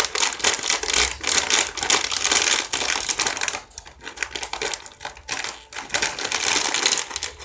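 Plastic snack wrapper being handled and torn open, a dense run of crinkling and crackling that thins out a little past the middle.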